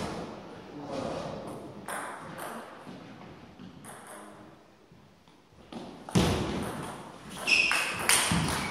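Table tennis rally: the ball ticking off the paddles and the table. A few scattered clicks come first, then a quicker exchange of hits starts about six seconds in. A brief high squeak comes near the end.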